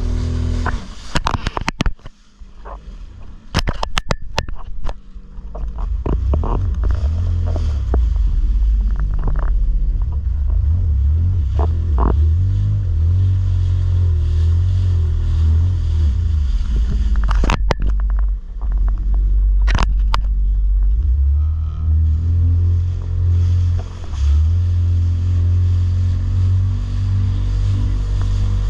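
Jet ski engine running under way over open water, with a deep rumble. It is quieter with several sharp knocks in the first few seconds, then runs steadily loud for the rest, with two more knocks later on.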